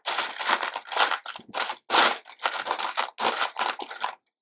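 Loose plastic LEGO pieces clattering and rattling as a hand rummages through a pile of bricks: a dense, irregular run of sharp clicks that stops shortly before the end.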